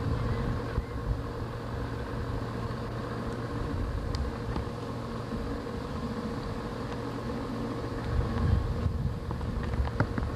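Steady drone of a small motorboat's outboard engine running, with low rumbling on the microphone in the last couple of seconds.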